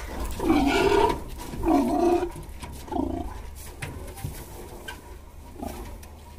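A large pig grunting in four bursts while being forced into a truck, each fainter than the last, with a few light knocks.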